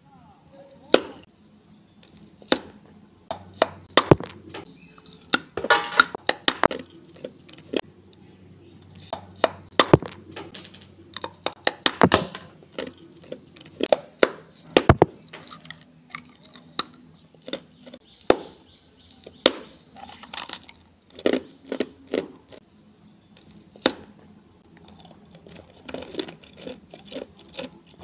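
Close-miked biting and crunching of hard colored ice blocks: sharp cracks at irregular intervals, sometimes bunched into short runs of crunching.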